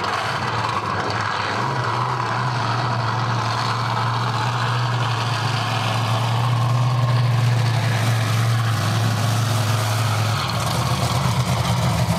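Monster truck's large engine running with a steady low drone, which changes about ten seconds in.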